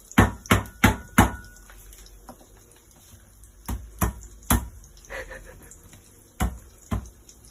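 A series of sharp, brief knocks and taps, about nine, at irregular intervals: a quick cluster at the start, more in the middle, and two near the end.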